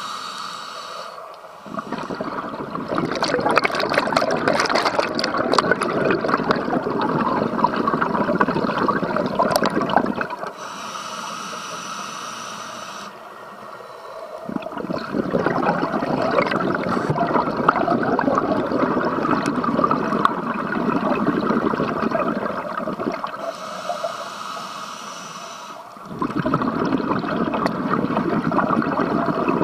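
Scuba diver breathing through a regulator, heard underwater: three long bubbling exhalations, with a quieter hissing inhalation through the regulator between them, twice, about thirteen seconds apart.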